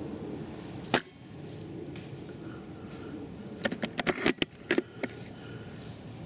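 A single sharp shot from an upgraded Tokyo Marui VSR G-Spec spring bolt-action airsoft rifle about a second in, followed about three seconds later by a quick run of sharp clicks as the bolt is worked to chamber the next BB.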